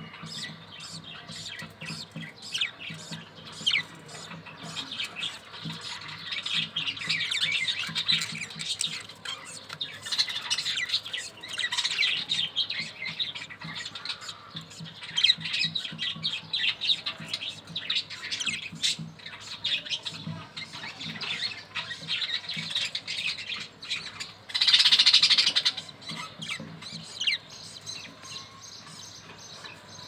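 Budgerigars in their nest chattering with dense, rapid chirps and clicky calls, with one loud, harsh squawk about twenty-five seconds in.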